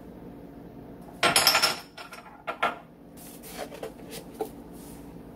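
Measuring spoons clattering and clinking: a loud rattle about a second in, then two sharp clicks and a few lighter ticks.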